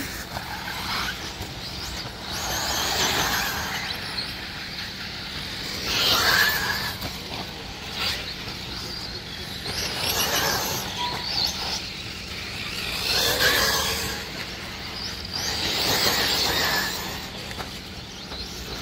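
1/8-scale electric RC buggies racing on a dirt track, their electric motors and drivetrains whining; the whine swells and fades about every three seconds as the cars accelerate and pass by.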